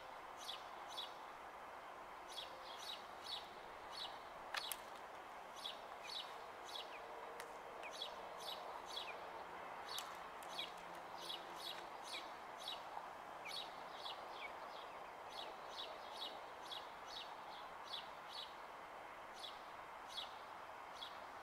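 Birds chirping: a steady run of short, high chirps, roughly one or two a second, some slurring downward, over a faint steady background hum.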